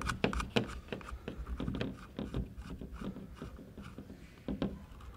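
Hands handling the steel parts of an 1895 Krnka prototype pistol at the barrel's muzzle end: scattered small clicks, taps and rubbing of fingers on metal.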